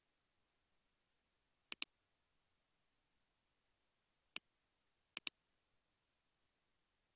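Computer mouse clicking against near silence: a quick double click a little under two seconds in, a single click past four seconds, and another double click about a second later.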